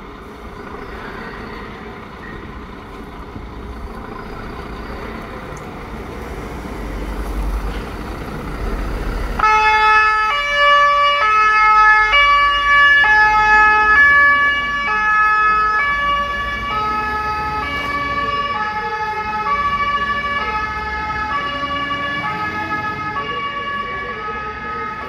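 Fire engine's engine rumbling and growing louder as it pulls out. About nine seconds in, its two-tone siren switches on, alternating between a high and a low note, and grows slightly fainter near the end as the truck drives off.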